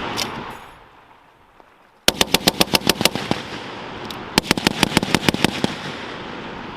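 M2 .50 caliber heavy machine gun firing two short bursts of about a dozen rounds each, the first about two seconds in and the second about four and a half seconds in. Each burst trails off in a long echo, and an earlier burst's echo is fading at the start.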